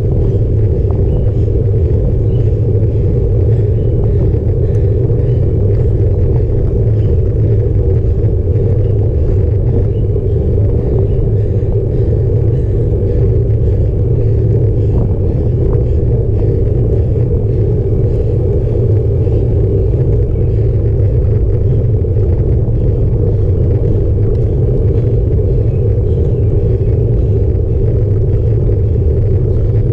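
Steady low rumble of road bike riding noise: tyre and road vibration and wind buffeting picked up by a handlebar-mounted camera. It stays even throughout.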